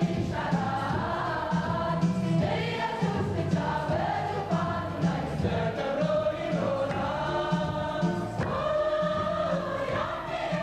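Large church choir singing a gospel hymn, with a steady low beat underneath.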